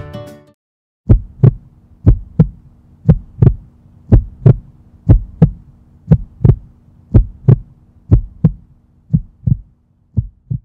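Heartbeat sound effect: about ten paired lub-dub thumps, one pair a second, fading over the last couple of beats. A few notes of acoustic guitar die away at the very start.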